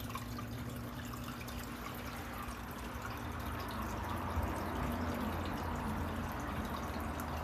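Aquarium filter running: a steady trickle of water over a low hum.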